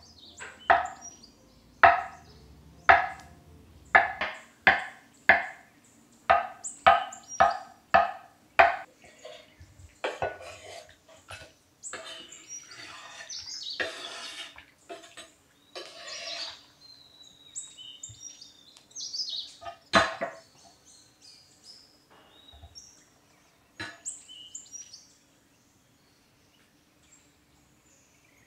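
Chef's knife slicing through a block of green aiyu jelly and knocking on a wooden cutting board, about fifteen quick strokes in the first nine seconds. Then come a few seconds of scraping as the cubes are pushed into a glass bowl, and a couple of single knocks later on. Birds chirp in the background.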